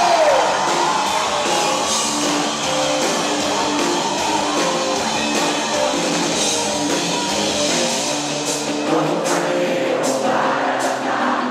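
Live band playing a rock-style worship song through a concert PA, with singing; held chords carry the first part and drum hits come in about eight seconds in.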